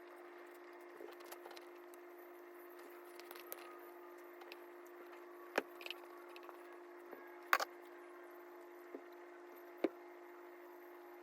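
Scattered clinks and taps of a kitchen utensil against a bowl over a steady low hum, with a few sharper knocks in the second half.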